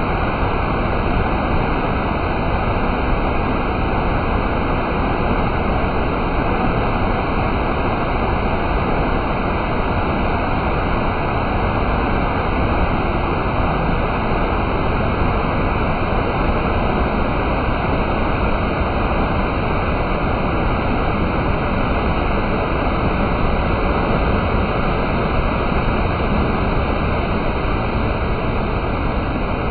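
Loud, steady rush of a tall waterfall cascading down rock ledges: falling water as an unbroken noise with no change.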